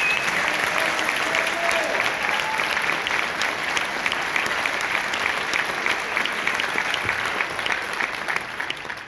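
Audience applause: many people clapping steadily, dying away near the end.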